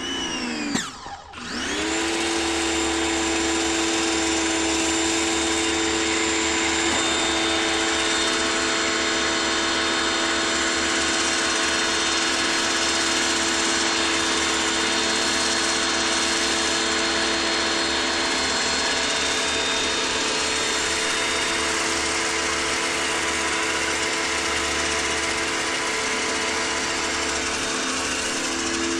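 LWQ 4200 PSI electric pressure washer kicking in with a brief dip in pitch and loudness in the first second or so, then running steadily: the motor and pump's even whine over the hiss of water spraying through the foam cannon.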